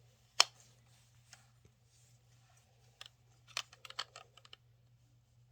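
Hard plastic toy parts clicking and knocking as they are handled and fitted together. A sharp click about half a second in, then scattered lighter clicks, bunched a little past the middle.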